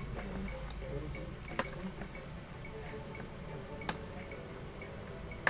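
Three sharp, short clicks spaced roughly two seconds apart, the last and loudest near the end, over a low steady hum.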